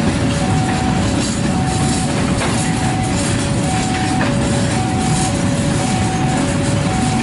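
Freight train of flat wagons rolling past on the rails: a steady low rumble of wheels and wagons. Over it, an electronic two-tone warning signal alternates high and low, each tone lasting about half a second.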